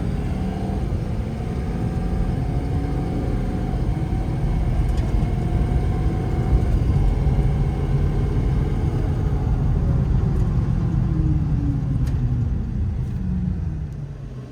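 Ford 6.7-litre Power Stroke V8 turbo-diesel running as the F-550 is driven, its pitch falling away and the sound dropping off near the end as the truck slows.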